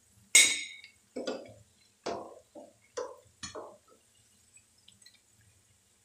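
A metal slotted spoon knocking against a frying pan while fried potato fritters are lifted out of the oil: one sharp ringing clink, then five duller knocks over the next three seconds.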